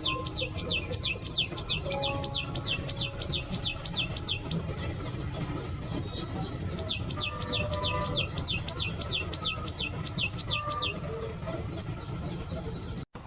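A bird singing a long, fast series of high whistled notes, each falling in pitch, about three or four a second, stopping about two seconds before the end. Soft sustained music tones and a low rumble sit underneath.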